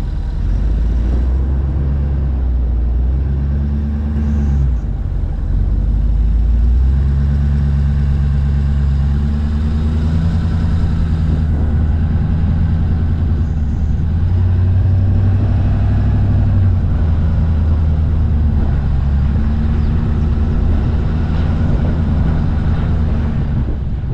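Ford F250 pickup truck running along a gravel road, a steady engine drone with road and tyre noise. The engine note shifts up and down a few times as the speed changes.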